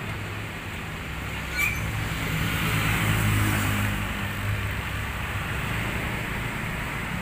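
Road traffic: a motor vehicle engine running past, loudest about three seconds in. A short click is heard about a second and a half in.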